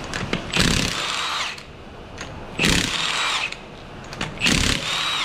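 Milwaukee M18 Fuel cordless impact wrench hammering 19 mm lug nuts off a car wheel, in three bursts of about a second each with short pauses between them.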